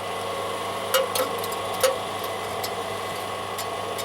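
A few sharp metal clicks as the loose spark plug wire connector on the chipper shredder's engine is worked by hand, over a steady mechanical hum. The clicks come between about one and two seconds in.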